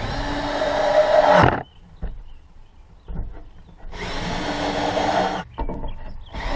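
Cordless drill driving screws into a pickup's tailgate liner: two runs of the motor, each about a second and a half and getting louder as the screw draws tight, with a few small clicks between them.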